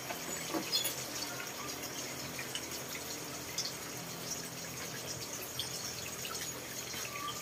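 Steady hiss of running or falling water, with a few faint scattered ticks.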